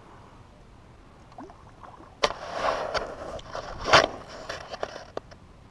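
Hooked bass thrashing and splashing at the water's surface: a sudden splash about two seconds in, more splashing, and the loudest splash about four seconds in, followed by a few small sharp ticks.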